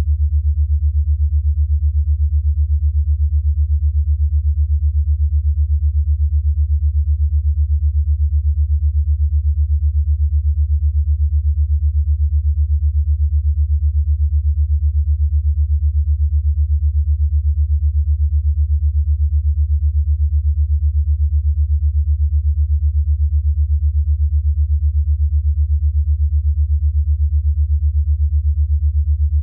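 Steady low sine tone pulsing rapidly and evenly, with no change throughout: an 8 Hz alpha brainwave-entrainment tone.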